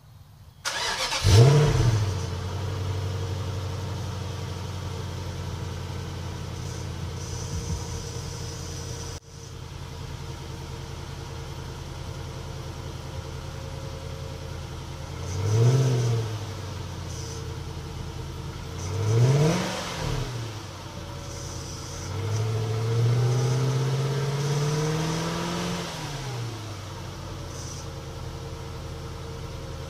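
Infiniti V8 cold start: a brief crank, then the engine catches about a second in with a rev flare and settles to a steady idle. Later come two short throttle blips and a longer rev held for a few seconds before dropping back to idle.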